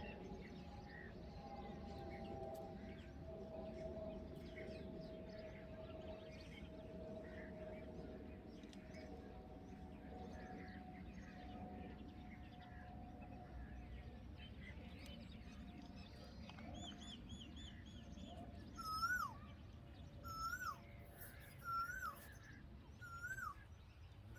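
Faint bird chirping around a bulbul nest over a faint steady drone. From about two-thirds of the way in, a bird repeats a short rising-then-falling call every second or so, about six times.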